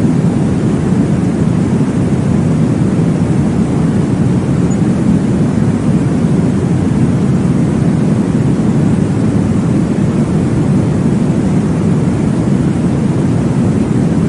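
Steady, deep whooshing noise with no rhythm or breaks: a white-noise sleep track for babies.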